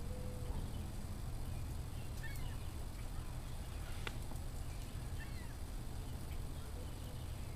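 Wood fire burning in a wood stove over a steady low rumble, with one sharp crackle about four seconds in. Birds chirp briefly now and then.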